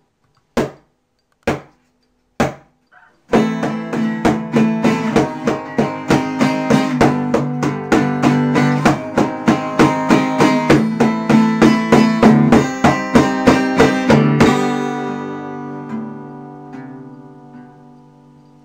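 Acoustic guitar in a lo-fi mobile-phone recording: a few sparse, sharp strokes, then steady rhythmic strumming from about three seconds in, ending on a chord that rings and slowly fades away over the last few seconds.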